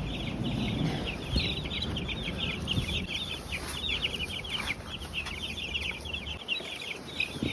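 A brood of baby chicks peeping nonstop, many short, high cheeps overlapping.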